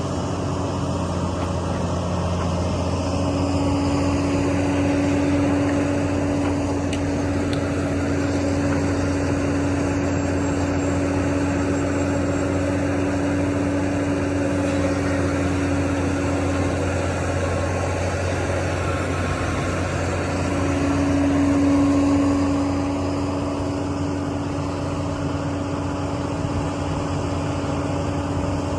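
Heavy diesel construction machinery running steadily, with a steady hum that strengthens for long stretches and swells briefly about three quarters of the way through.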